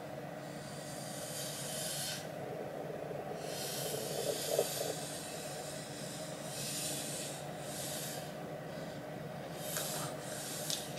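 Plastic Ouija planchette sliding across the glossy board under the fingertips: several soft, hissy scraping swishes a few seconds apart as it moves from letter to letter.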